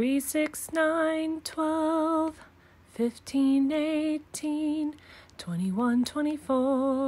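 A woman singing the multiples of three ('three, six, nine…') as a slow counting song. Each number is a separate held note with a wavering vibrato, and there are short gaps between the notes.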